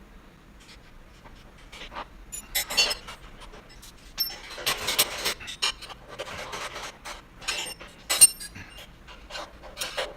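Parts of a Harbor Freight motorcycle dolly being handled and fitted together during assembly: irregular clinks, knocks and short scrapes, with a sharp knock about eight seconds in.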